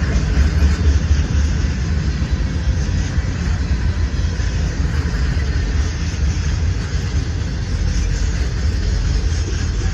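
Freight train rolling past, a steady loud rumble with no horn sounding.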